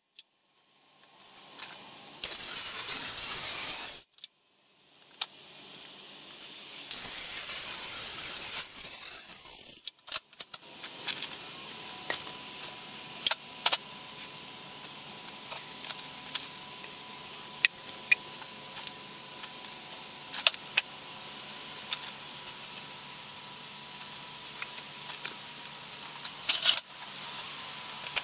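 Corded circular saw cutting through a thick wooden board in two short bursts of about two seconds each. Afterwards, scattered light clicks and clinks as the board and tools are handled, over a faint steady tone.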